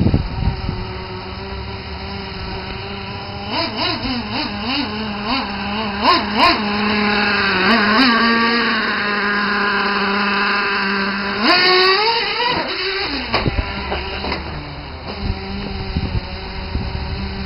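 Traxxas T-Maxx 3.3 nitro RC truck's small two-stroke glow engine running under throttle as the truck is driven: its pitch rises and falls with quick throttle blips, holds high for several seconds, sweeps sharply up about twelve seconds in, then drops back lower.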